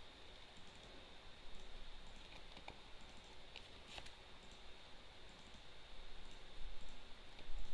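Faint clicks and taps of fortune-telling cards being handled and laid down on a table, a few sharper ones around the middle, over a low steady hiss.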